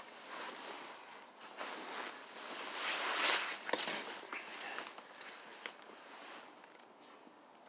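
Blankets and clothing rustling and shuffling close to the phone as they are pulled around and piled on, loudest about three seconds in, with a few light knocks.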